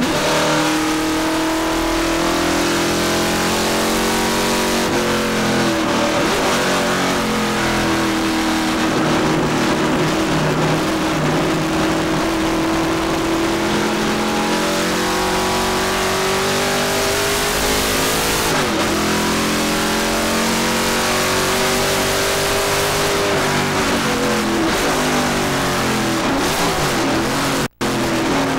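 The Boss 302 V8 of a 1970 Trans Am racing Mustang, heard from inside the cabin, pulling hard on track. Its pitch climbs steadily and drops back sharply a few times. The sound cuts out for an instant near the end.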